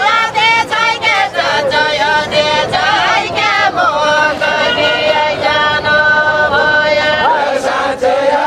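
A group of men and women singing a Deuda folk song together, unaccompanied, in a chant-like melody with long held notes in the middle.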